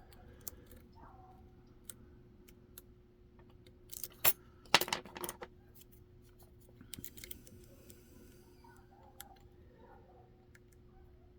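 A lock pick clicking and scraping against the pins inside a Kaba KIK pin-tumbler cylinder with security pins, while the pins are checked one by one for any that need lifting higher. The small metallic clicks are scattered, with a louder cluster about four to five seconds in.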